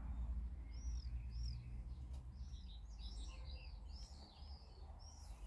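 Small birds chirping: a run of short, high, arched chirps, a few at first and then coming thick and fast in the second half, over a low steady rumble.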